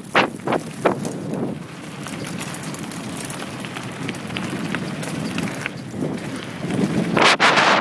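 Mountain bike rolling fast down a dirt and gravel trail: tyres crunching over loose stones, with sharp clicks and rattles from the bike over bumps and wind rushing on the camera microphone. A few clicks come in the first second, and the noise swells loudest near the end.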